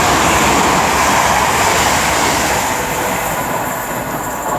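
West Midlands Railway Class 323 electric multiple units passing close by as a steady rush of wheel and traction noise, easing a little near the end as the train runs away over the points.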